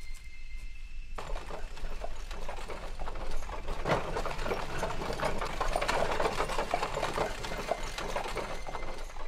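Horse-drawn carriage on the move: hooves and wheels clattering and rattling on a gravel road in a dense run of fast, irregular ticks. It starts suddenly about a second in and is busiest around the middle.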